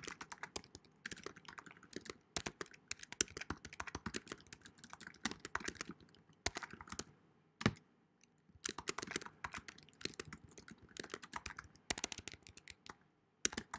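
Typing on a computer keyboard: quick, irregular runs of key clicks, with a brief pause a little past halfway and one harder key strike just before it.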